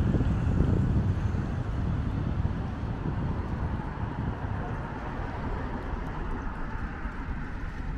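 Street ambience beside a road: car traffic and wind buffeting the microphone. The low rumble is heaviest in the first second or so and eases after.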